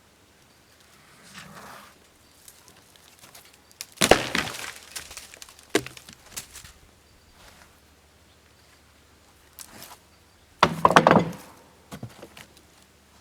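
Freshly sawn maple slabs knocking together as they are handled on the sawmill: a loud wooden clatter about four seconds in and another about eleven seconds in, with lighter knocks between.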